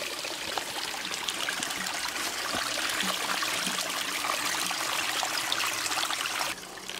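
A small spring trickling and splashing over rocks and into a plastic water bottle held under the flow to fill it. The splashing grows a little louder, then drops away sharply near the end.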